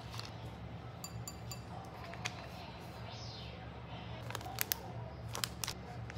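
Chopsticks, a lunch box and a spoon being handled on a countertop: scattered light clicks and taps, the sharpest in a cluster about four and a half to five and a half seconds in, over a low steady hum.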